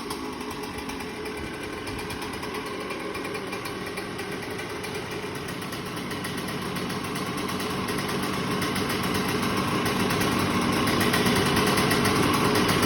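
Suzuki RM125 two-stroke single-cylinder engine idling steadily, getting louder through the second half.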